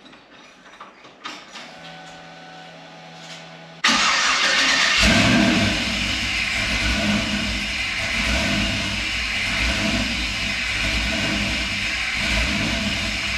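The 6.0-litre L96 LS V8 cranks and catches about four seconds in, flares briefly, then settles into a steady idle. Before that there are a few faint clicks and a low steady hum. This is the engine's first start with its new radiator filled with water for a leak test.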